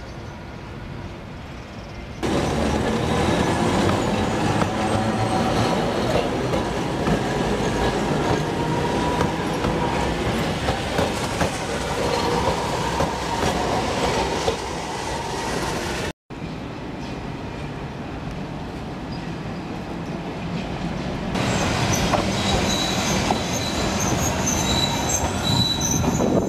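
Alexandria tram cars running on the rails close by: steel wheels rumbling and clattering on the track, with squealing from the wheels. It gets much louder about two seconds in as a tram passes, and thin high squeals come in near the end.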